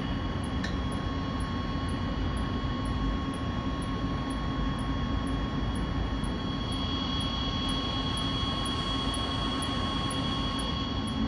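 Rooftop HVAC equipment running: a steady fan drone with a constant hum over it.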